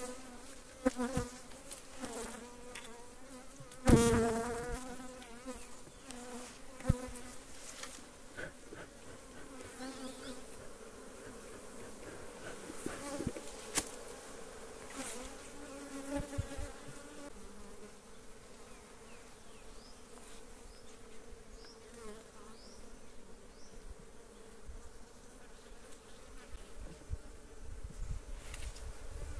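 Swarm of honeybees buzzing around an opened hive, a steady hum. Now and then a knock or click as the hive's wooden boxes and frames are worked, the loudest about four seconds in.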